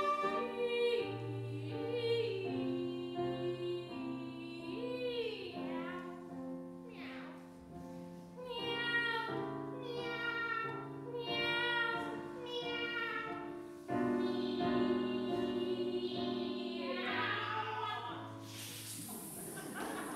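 Two women singing a comic cat duet in operatic style with piano accompaniment, their sung notes wavering and several times sliding downward like meows. A short burst of hissing noise comes near the end.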